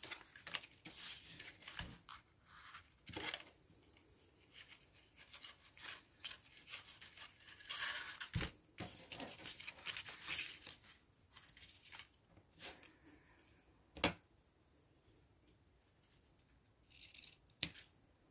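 Faint rustling and scraping of a cardstock tag and ribbon being handled as the ribbon is threaded through a hole and tied into a bow, with a few light taps, the sharpest about fourteen seconds in.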